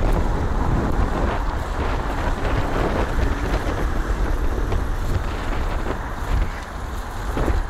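Wind buffeting the microphone of a camera carried on a moving bicycle, a heavy low rumble over the steady noise of surrounding car and scooter traffic.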